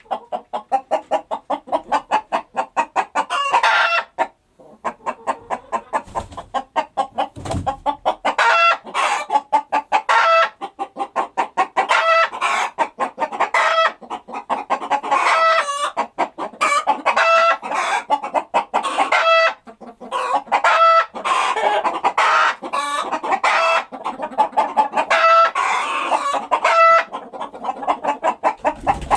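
A flock of chickens clucking and squawking continuously in a coop, many rapid overlapping calls with short loud squawks.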